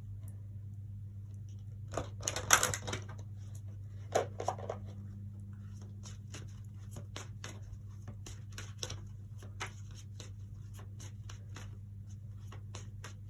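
A deck of oracle cards being shuffled and handled by hand: a crackly rustle about two seconds in and again about four seconds in, then a run of light card clicks. A steady low hum lies underneath.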